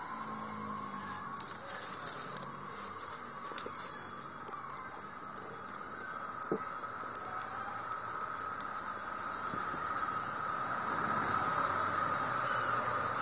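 Firewood burning in a small brick stove, crackling with scattered pops, under a steady hiss that grows louder near the end as the clay pot of tender jackfruit in coconut milk heats over the flame.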